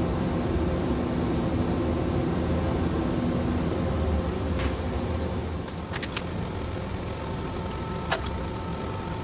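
Steady hum of a running machining center, with a few sharp metallic clicks in the second half and a final clank that rings briefly.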